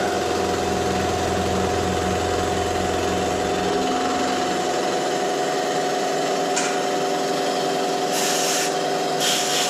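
Bridgeport EZ Trax milling machine running, with a steady spindle whine throughout and a low hum that stops about four seconds in. Near the end come two short bursts of cutting noise as the end mill bites into the aluminium VW cylinder head.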